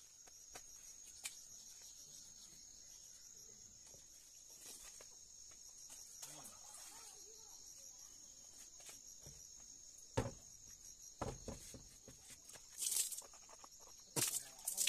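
A steady, high-pitched chorus of insects droning without a break. In the last five seconds a few louder knocks and short hissy bursts break in over it.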